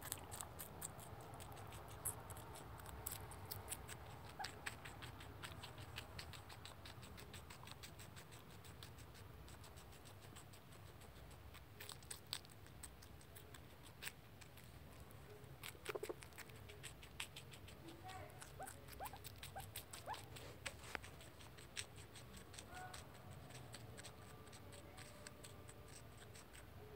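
Baby rex guinea pig chewing celery: a fast run of faint, crisp clicks, dense at first and thinning out in the second half, with a few short faint squeaks near the end.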